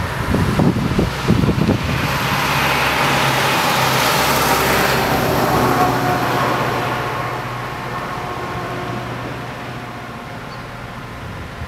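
A motor vehicle passing by: its engine hum and rushing noise swell to a peak about four to five seconds in, then fade away. Wind buffets the microphone in the first couple of seconds.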